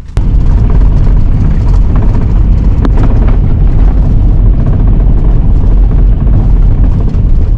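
Strong wind buffeting the microphone: a loud, even low rumble that starts suddenly just after the beginning.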